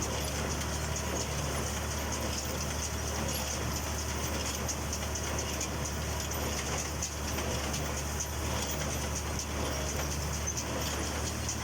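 Massey Ferguson 126 square baler running with its tractor: a steady mechanical drone with a rattling high clatter, even throughout.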